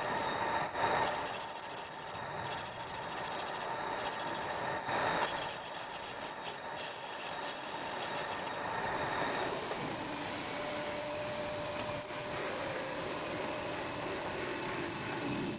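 Metal lathe running steadily, with a fast, high rattling hiss over it, typical of a tool cutting, that stops a little past halfway.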